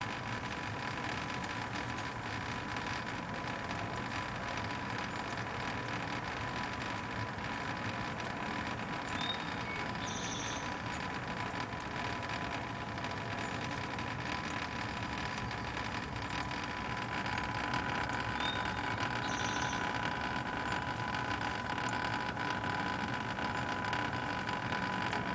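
Outdoor air-conditioner condensing unit running with its condenser fan motor failed and not turning: a steady mechanical hum with a constant high whine, getting slightly louder about two-thirds of the way through. The dead fan motor is the fault, and it needs replacing.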